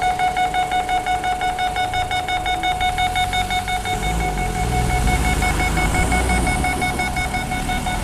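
Japanese railway level-crossing alarm sounding in quick, even pulses over a steady high tone. From about halfway through, a train rumbles past.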